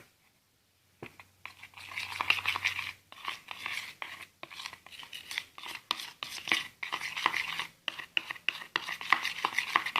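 Spoon stirring a thickening glue-based slime mixture in a bowl, with rapid scraping and clicking of the spoon against the bowl, starting about a second in.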